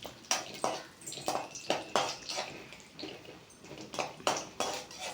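A spoon stirring cashews roasting in ghee in a pan: irregular clicks and scrapes against the pan, two or three a second.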